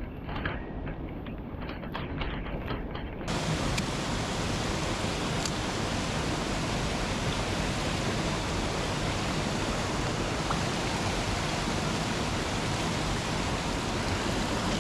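Rushing mountain-stream water, a steady even hiss. It turns abruptly louder and brighter about three seconds in. Before that, the water is duller and has a few light clicks over it.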